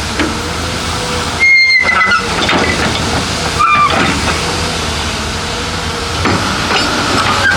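Heavy construction machinery at work: a steady mechanical hiss and rumble with brief high-pitched squeals, broken twice by short gaps.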